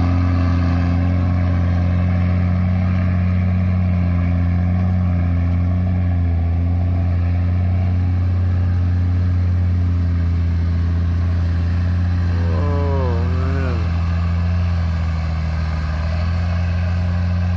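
Heavy diesel earthmoving machinery running steadily with a deep, even drone. A brief wavering, higher-pitched sound rises over it about two-thirds of the way through.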